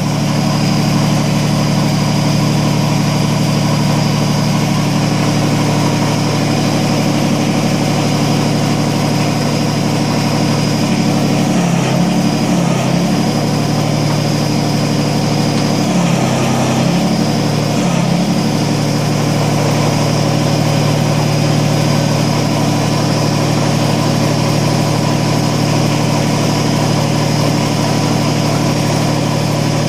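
Kubota BX25D's three-cylinder diesel engine running steadily. Its pitch dips briefly in two spells near the middle as the hydraulics take load raising the backhoe.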